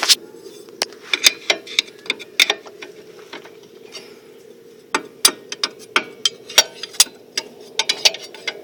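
Irregular sharp metallic clicks and knocks as a pry bar works a rusted-on rear brake drum off the hub, with a faint steady hum underneath.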